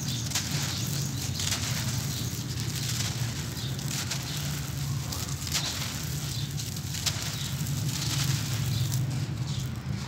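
Dry, gritty cement-and-gravel clumps crushed and crumbled by hand: a continuous dense crackling of breaking lumps, with grit and powder trickling onto a gravel pile and fingers raking through loose gravel near the end. A steady low hum runs underneath.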